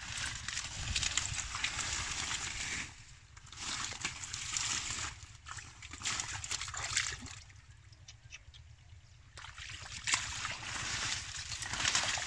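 Hands and bare feet working through thick mud and shallow water, splashing and squelching in bursts of one to three seconds with quieter gaps between, the quietest stretch about two-thirds of the way through.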